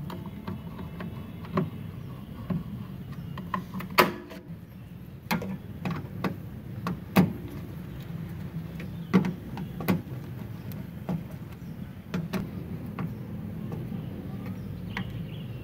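Irregular sharp clicks and light taps of a screwdriver working the screws of a welding machine's three-phase power terminal block as the supply wires are fastened, over a steady low hum.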